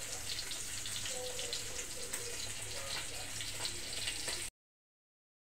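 Oil sizzling and crackling as dried fish (daing) fries: a steady hiss with small pops that cuts off suddenly about four and a half seconds in.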